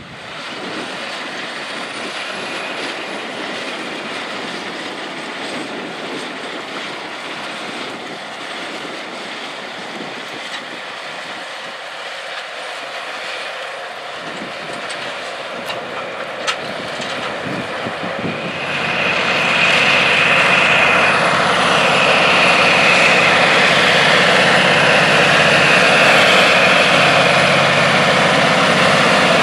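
John Deere 9620R articulated tractor's Cummins QSX15 six-cylinder diesel running steadily under load while pulling an anhydrous ammonia applicator. It grows markedly louder about two-thirds of the way in as the tractor comes close.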